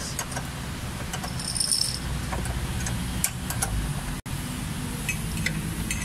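Metal chain clinking and rattling as it is wrapped around a diesel engine's crankshaft pulley to hold it still, with scattered sharp metal clicks over a steady low hum.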